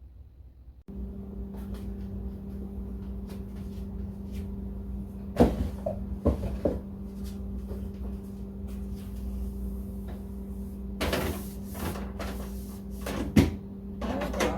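Cupboard doors opening and closing, with items knocked and handled in a few sharp clacks, over a steady low hum that sets in about a second in.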